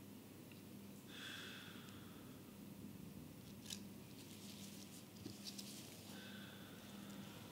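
Very quiet room with a steady low hum and faint handling sounds from gloved hands placing a dry needle: two soft rustles, about a second in and near the end, and a few small clicks.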